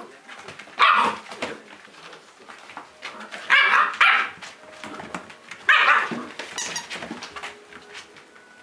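Old English Sheepdog puppies barking: four short barks, one about a second in, two in quick succession a few seconds later, and one more near the end, over the faint scuffling of the puppies at play.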